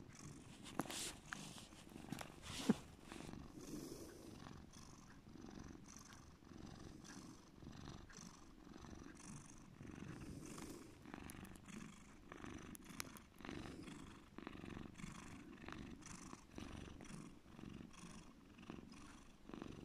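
A domestic cat purring deeply and steadily, the purr pulsing in an even rhythm. A couple of sharp clicks come in the first three seconds.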